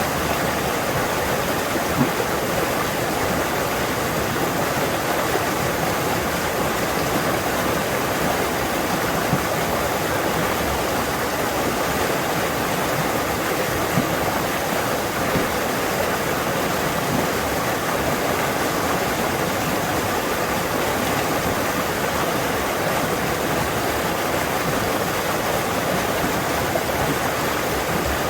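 Fast-flowing forest stream rushing over stones: a loud, steady rush of water with small splashes now and then.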